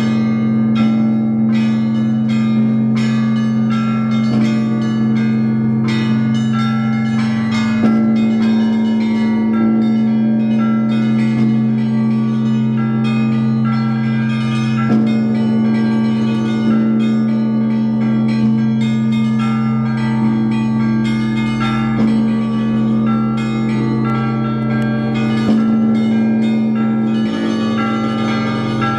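Church bells ringing: quick, rhythmic strikes of smaller bells over the long, steady hum of a large bell. The large bell is struck afresh every several seconds.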